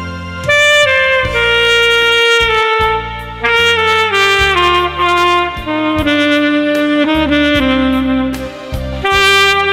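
A saxophone plays a melody of held notes over an instrumental backing track with a bass line.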